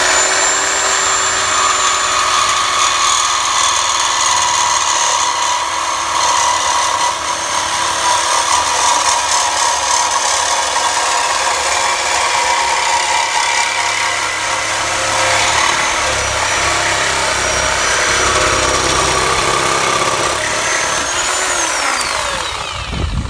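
Chicago Electric reciprocating saw running steadily as its blade cuts through the steel exhaust pipe at the muffler, a high motor whine over the rasp of the blade on metal. Near the end the motor briefly speeds up, then winds down.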